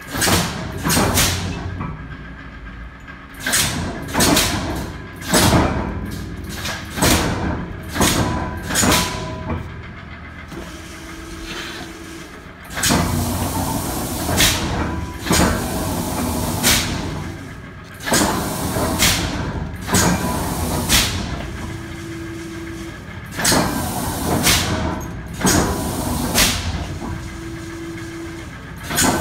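Old mechanical press brake working while it bends a steel railroad spike: a string of loud, sharp strikes, roughly one a second and unevenly spaced, each ringing out briefly, over a steady machine hum.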